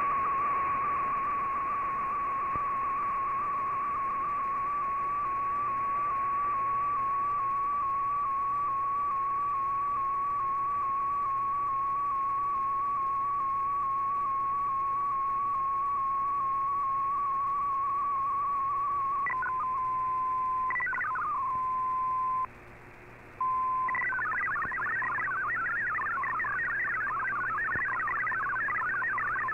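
Shortwave digital-mode broadcast heard through an AM receiver over steady radio hiss: for about the first twenty seconds a single wavering whistle carries an MFSK picture. It is followed by a steady tone with a brief gap, and then, a few seconds before the end, by the fast burbling multi-tone warble of MFSK64 text data.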